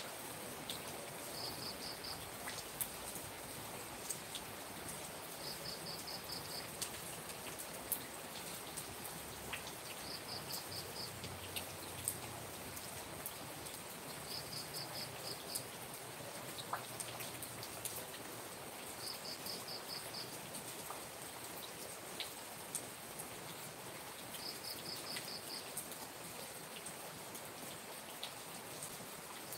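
Rain falling steadily with scattered drips ticking and splashing, and an insect chirping in short trills of about five pulses, repeated every four to five seconds.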